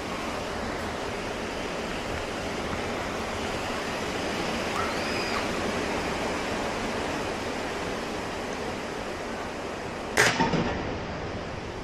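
Steady wind noise on the microphone, then about ten seconds in a single sharp shot from a .22 break-barrel air rifle, followed at once by a couple of smaller knocks.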